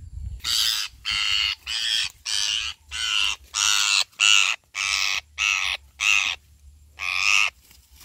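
A parakeet caught in a net screeching as it is handled: about eleven harsh, loud calls in quick succession, with a short break before the last one.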